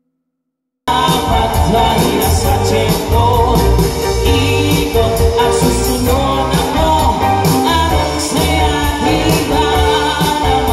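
Live band with a singer and guitars playing a song through PA speakers. It cuts in suddenly about a second in, after near silence.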